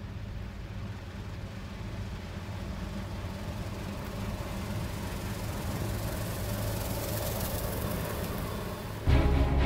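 New Holland combine harvester running through a wheat crop: a steady low engine hum with a hiss over it, growing louder as the machine comes closer. Music cuts in abruptly near the end.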